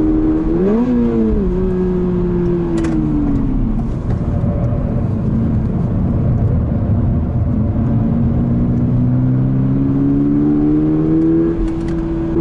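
Toyota GR86's 2.4-litre flat-four engine heard from inside the cabin while lapping a circuit. The revs briefly jump and fall about a second in, then sink as the car slows for a corner, hold low, and climb steadily as it accelerates out. There is a short dip near the end, then a steady note.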